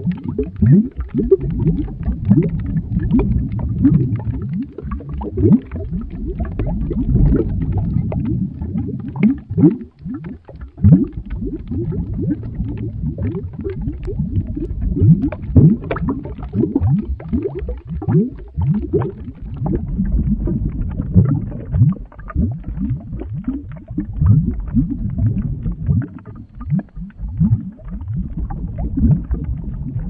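Boiling-lava sound effect: a liquid boiling with continuous low bubbling and gurgling, many plops overlapping, with a brief lull about ten seconds in.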